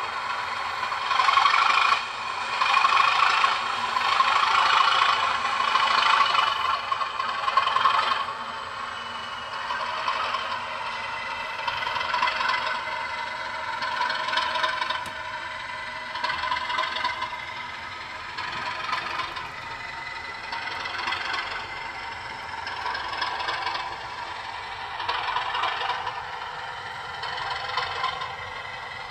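Bachmann Class 55 'Deltic' model locomotive running with its DCC sound decoder playing the Deltic diesel engine sound through the model's small speaker, thin and without bass, mixed with a rattling clatter from the running gear. It is louder for about the first eight seconds, then quieter, swelling every couple of seconds.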